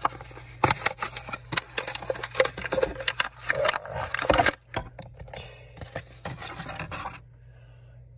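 Die-cast toy car being set down and pushed across a gritty gravel-textured diorama base, with a busy run of small clicks, crunches and scrapes that stops about a second before the end.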